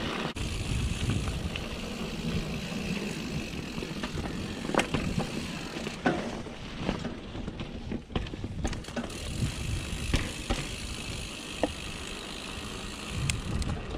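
Canyon Torque mountain bike being ridden, heard from the bike: a steady rush of wind over the microphone and tyres rolling over gravel and dirt. Scattered sharp clacks and rattles from the bike come over bumps, mostly in the second half.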